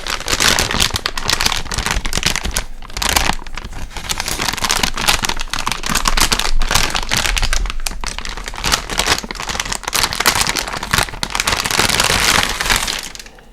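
Plastic anti-static bag crinkling loudly as a graphics card in it is handled and lifted out of its packaging, a dense crackling rustle that eases off near the end.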